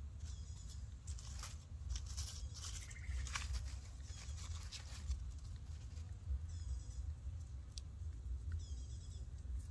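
Crackling rustle of dry leaf litter, busiest in the first few seconds. Short, high, buzzy chirps of about half a second come back every couple of seconds over a low steady rumble.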